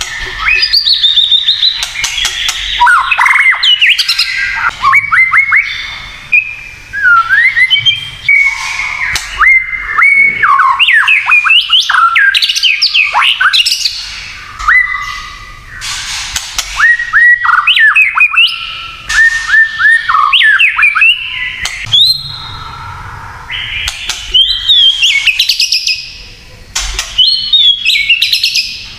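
White-rumped shama singing in rapid, varied phrases: whistled notes sweeping up and down, broken by short harsh clicks and rattles (the 'kretekan' rattle used to provoke rival shamas), with a few brief pauses.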